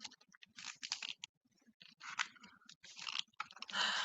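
Faint crinkling and crackling of stiff paper, a pop-up book's page being handled and turned, in many short irregular clicks that grow a little louder near the end.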